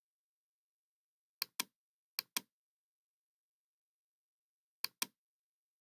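Computer mouse clicking three times, each click a sharp press and release about a fifth of a second apart. The clicks come about one and a half seconds in, just over two seconds in, and near the end.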